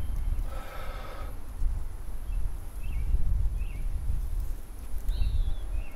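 A person blowing long, repeated breaths into a dry-grass tinder bundle that holds a bow-drill ember, coaxing the coal to flame; the breath rushes and buffets unevenly. A few short bird chirps come from about two seconds in.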